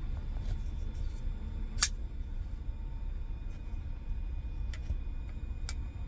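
Folding pocketknife blades being flicked open and snapping into their locks: a sharp metallic click about two seconds in and another near the end, with fainter handling clicks between, over a steady low rumble.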